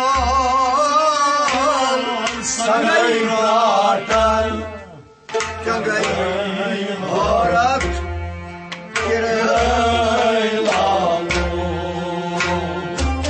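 Kashmiri devotional song: a voice sings long, ornamented melodic lines over hand-drum beats and string accompaniment, with two short breaks in the music.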